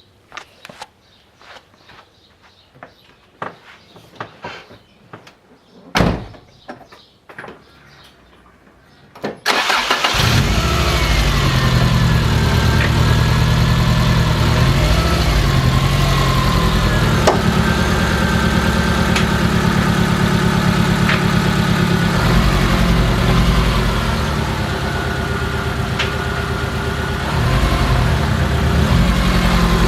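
Car engine starting about nine seconds in and then running steadily, with its pitch shifting at times and a few sharp clicks over it. Before the start there are scattered clicks and one loud thump about six seconds in.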